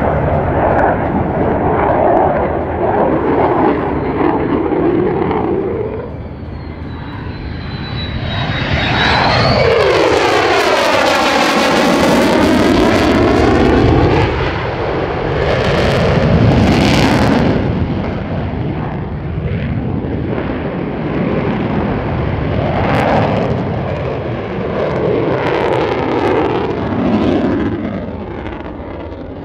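Loud jet noise from the Lockheed Martin F-35A Lightning II's single F135 afterburning turbofan through a display pass, running in afterburner. It swells to its loudest as the jet passes close about ten seconds in, with a sweeping, phasing rush. It then eases as the jet pulls away.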